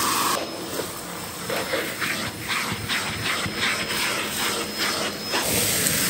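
Dyson DC04 vacuum cleaner running, its hose and nozzle tool sucking up sawdust and grit from carpet. The rush of air dips about half a second in, then surges two or three times a second as the tool is worked back and forth.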